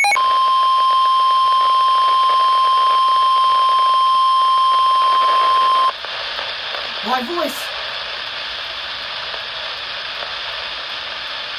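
NOAA Weather Radio's 1050 Hz warning alarm tone: a single steady high tone held for about six seconds, signalling a warning broadcast. It then cuts off suddenly to steady radio hiss.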